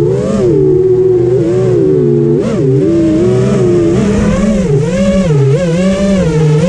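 FPV racing quadcopter's brushless motors whining, the pitch swooping up and down continually with the throttle.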